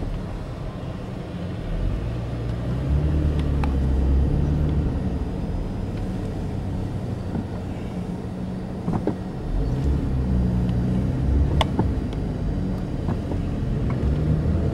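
Car engine and road noise heard from inside the cabin while driving up a steep city street. The engine note shifts in steps as it pulls, and a few faint clicks come through about nine and eleven seconds in.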